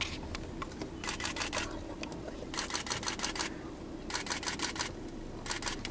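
A camera shutter firing in continuous bursts: four runs of rapid clicks, each lasting up to about a second, with short gaps between them.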